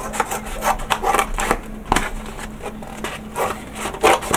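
Cardboard being cut by hand: a quick, irregular series of short cutting strokes, several a second.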